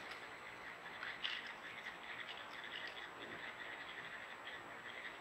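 Faint swamp chorus of frogs and insects: many short calls overlapping, with one louder call about a second in. A thin, steady high whine runs underneath.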